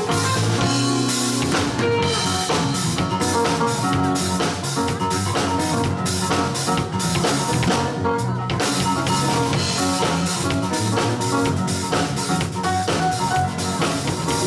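Live instrumental band music: electric guitar, a busy drum kit, bass guitar and keyboard playing together.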